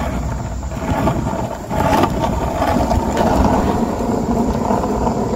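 Skateboard wheels rolling on a paved path: a steady rolling rumble with a few sharp clicks.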